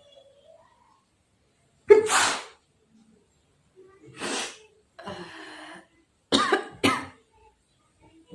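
A woman sneezes, a sudden loud burst about two seconds in, brought on by cotton tickling the inside of her nose. Several shorter breathy bursts follow.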